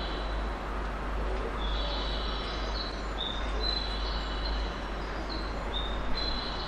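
Container freight wagons rolling past with a steady low rumble, with high, level tones coming and going over it.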